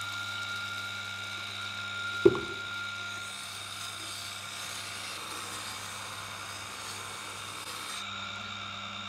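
Tormek T-7 water-cooled sharpening machine running with a steady motor hum and whine while a chisel in its jig is slid across the wet grindstone, grinding the bevel back past chips in the edge. One sharp knock about two seconds in.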